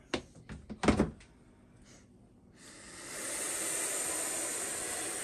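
Two sharp knocks in the first second, then a young, defensive boa constrictor hissing: one long steady hiss of about three seconds starting just past halfway, a warning sign from a snake that is still aggressive at this age.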